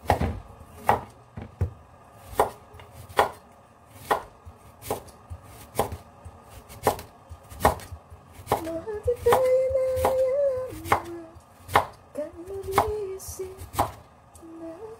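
Cleaver-style kitchen knife slicing through a raw sweet potato, a sharp knock at the end of each cut, about one cut a second. From about halfway a woman hums a tune over the cutting.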